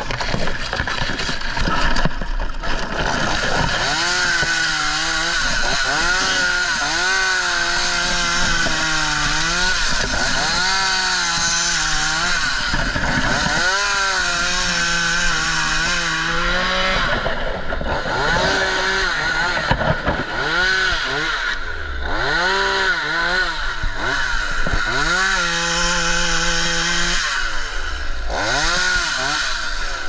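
Craftsman chainsaw running hard and cutting through dried palm frond bases. The engine pitch repeatedly rises and dips as the chain bites and frees, with a brief let-up about halfway through.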